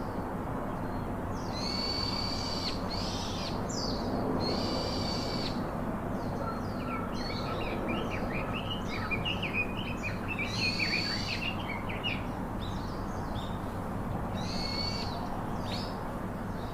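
Birds calling: a harsh, high call repeated about five times, each under a second long, with a flurry of quick chirps in the middle, over a steady low background noise.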